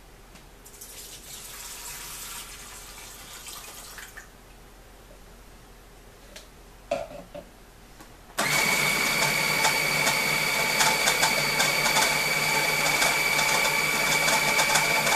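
Water is poured into a food processor bowl for about three seconds, and a few clicks follow. Then, about eight seconds in, the food processor's motor starts suddenly and runs steadily with a high whine, blending the chopped garlic with the water.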